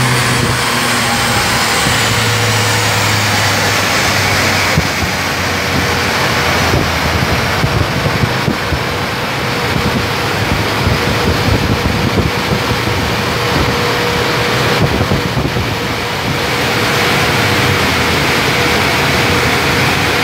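Car engine running steadily on a chassis dynamometer, with a dense rushing noise and a steady thin whine over it.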